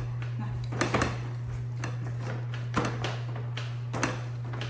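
Tableware knocking and clinking a few times (about a second in, near three seconds and near four seconds) over a steady low hum.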